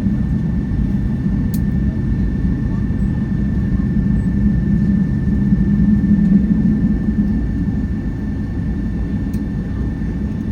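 Steady low rumble of a Boeing 757-200's cabin on the ground after landing, with a constant high whine over it and a couple of faint clicks.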